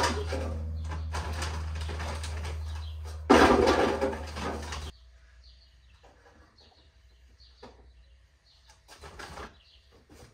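Potatoes being handled for weighing: rustling and knocking over a steady low rumble, with a loud rustling clatter about three seconds in. The sound then cuts off suddenly to quiet, with faint bird chirps and a few light clicks.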